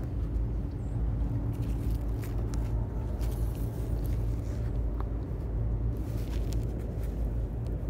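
Steady low outdoor rumble, with a few faint clicks and rustles as a magnet-fishing rope is handled.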